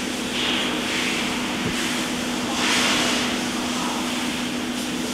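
Doosan Puma 240MC CNC turning center running: a steady machine hum with a rushing noise over it that swells twice.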